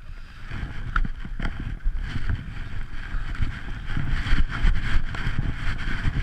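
Wind buffeting the camera microphone while skiing downhill, a steady low rumble with the hiss of skis sliding on packed snow.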